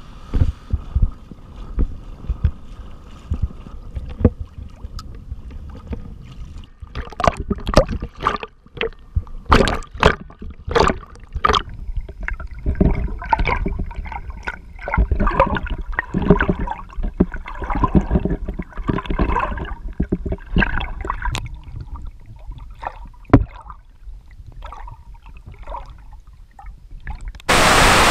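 Seawater sloshing and splashing around a waterproof action camera held at the surface as a person wades out chest- to neck-deep through surf, with muffled gurgles, thumps and irregular splashes. Near the end it switches abruptly to a steady, loud rush of wind and surf.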